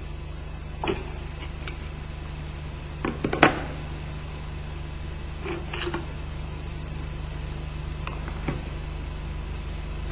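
A few short metallic clicks and clunks as the clutch is pulled off the crankshaft of an MZ EM 251 motorcycle engine with a screw-type clutch puller and lifted away by hand. The loudest clunk comes about three and a half seconds in, and a steady low hum runs underneath.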